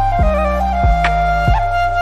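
Background music: a held melody line over low drum beats about every two-thirds of a second.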